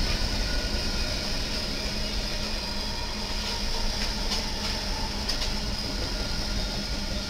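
A string of BNSF diesel-electric locomotives running light passes close by. Their engines drone steadily and their wheels rumble on the rails, with a few sharp clicks, easing off slightly as the last units go by.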